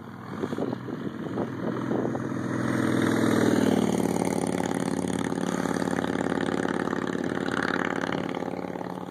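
Motorcycle passing by on the road: its engine grows louder as it approaches and is loudest about three and a half seconds in as it goes past.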